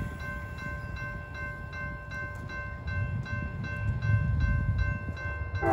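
Railroad grade-crossing warning bell ringing in rapid, even strikes while the gates are down for an approaching train. A low rumble builds through the second half, and a locomotive horn starts right at the very end.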